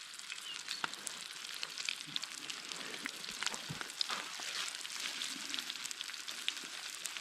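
Food frying in a pan, sizzling steadily with scattered crackles and pops.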